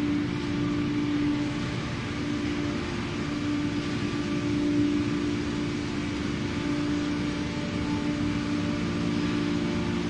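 Automatic cardboard baler machinery running with a steady, even hum, with no pauses or strokes.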